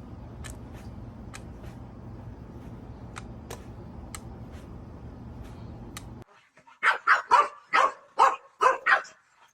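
Steady low background noise with scattered faint clicks, cutting off abruptly; then a dog barking about seven times in quick succession, roughly two barks a second.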